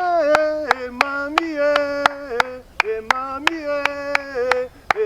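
Singing in long held notes over steady hand claps, about three claps a second, keeping the beat of a chant.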